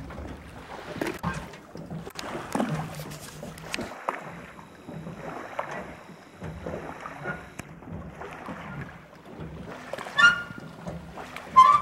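Small waves lapping and splashing irregularly against the lakeshore, stirred up by a speedboat's wake. Two short high-pitched calls come near the end.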